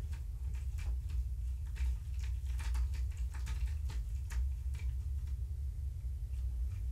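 Irregular light clicks and ticks from kittens moving about on the cat tree and scratcher, most frequent in the middle, over a steady low room hum.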